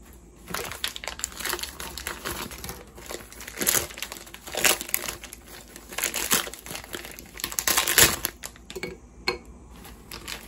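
Thin clear plastic bag crinkling in irregular bursts as a white lotus bud is unwrapped from it. The crinkling stops about eight and a half seconds in, followed by a couple of light clicks.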